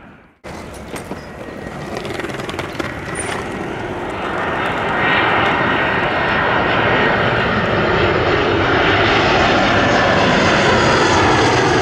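Twin-jet airliner on final approach, its engine noise a steady rushing roar that builds over the first few seconds and holds loud as it nears, after a short break in the sound at the start.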